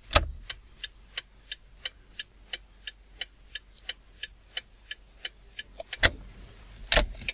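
Steady, evenly spaced ticking, about three sharp ticks a second, with two louder thumps near the end.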